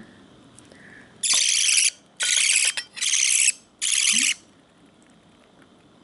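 Baby budgerigar chick giving four harsh, raspy squeals, each about half a second long: the begging calls of a chick taking food from the feeding spoon.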